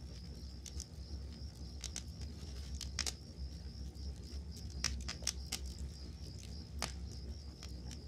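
Wood campfire crackling, with irregular sharp pops, the loudest clustered around three and five seconds in, over a steady low rumble. Crickets trill steadily at a high pitch in the background.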